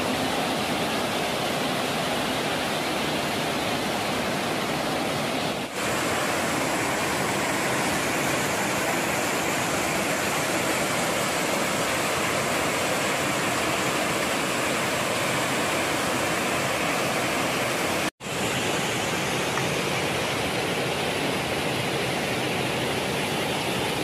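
Steady rush of a waterfall pouring onto rock and into a pool, cutting out for an instant about three quarters of the way through.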